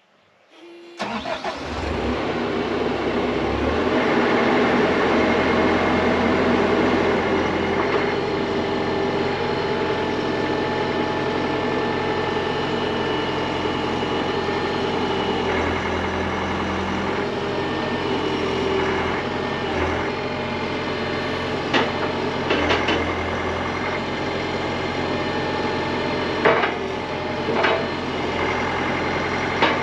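The Mecalac 8MCR's diesel engine starts about a second in and then runs steadily while the boom and pallet forks are moved. A few sharp clanks come in the last third.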